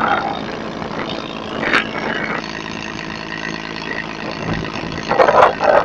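Passenger river launch's engine running with a steady hum, and water rushing along the hull. A couple of louder splashing or rushing bursts come near the end.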